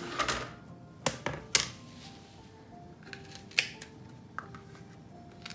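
Kitchen knife cutting okra against a plastic chopping board: a handful of sharp, irregular taps as the okra is trimmed, the loudest about one and a half and three and a half seconds in. Soft background music with sustained notes underneath.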